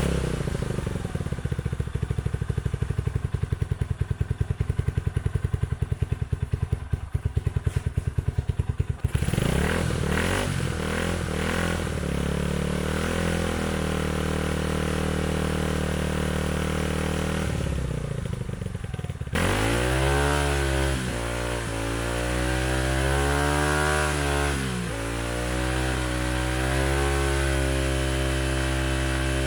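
KYMCO KCR125 single-cylinder four-stroke motorcycle engine running through an aftermarket slip-on silencer fitted with an inner baffle: a pulsing idle, then a steadier note, then revved up and down several times from about two-thirds through. With the baffle in, the exhaust is much quieter than the bare silencer.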